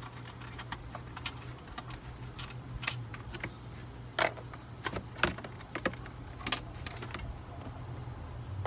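Scattered metallic clinks and clicks of hand tools and loose bolts being handled, irregular rather than rhythmic, over a steady low hum.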